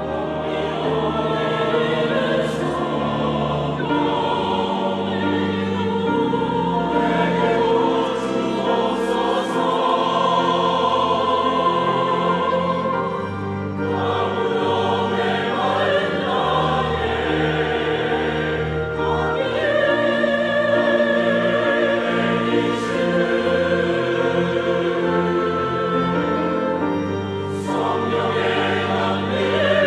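Large mixed church choir singing a Korean hymn in full harmony, with instrumental accompaniment underneath.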